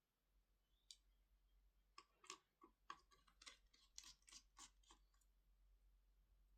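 Faint, sharp clicks and taps in a quick, irregular run of about fifteen, between about one and five seconds in, over a low hum.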